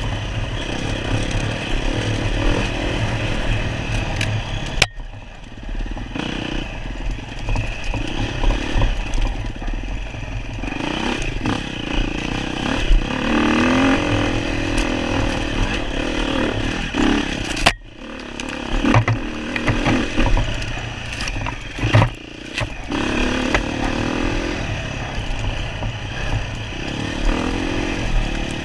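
Off-road enduro motorcycle engine running under changing throttle, its note rising and falling as it is ridden, with clattering knocks mixed in. The sound drops out briefly twice.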